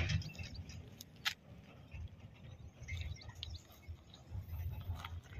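Quiet outdoor background: a low rumble with a few faint bird chirps, and a single sharp click about a second in.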